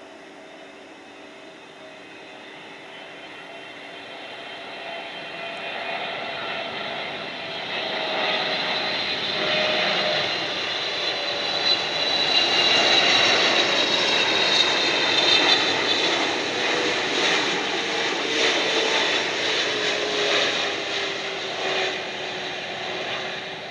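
A Boeing 777-300ER's GE90-115B turbofans as the airliner comes in on final approach. The jet whine holds several tones that slowly fall in pitch, growing louder to a peak just past midway, with a rough crackle near the loudest part, then easing off.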